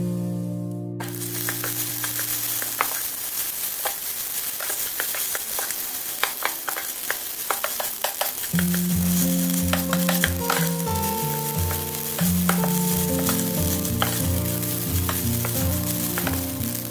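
Rice frying in a non-stick pot, sizzling as it is stirred and scraped with a wooden spatula, with frequent light clicks of the spatula against the pan. The sizzle starts suddenly about a second in.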